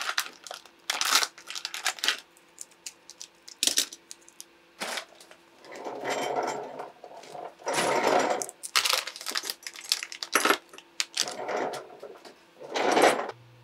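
A small plastic parts bag crinkling as it is cut open and handled, with light clicks and clinks of small metal sewing-machine presser-foot parts being set down on a cutting mat.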